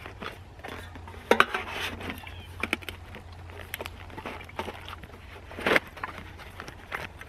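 A metal canteen and cook pot clinking and scraping against each other as they are pushed down into a waxed canvas and leather belt pouch, with a few sharp knocks, the loudest about a second in and again near six seconds.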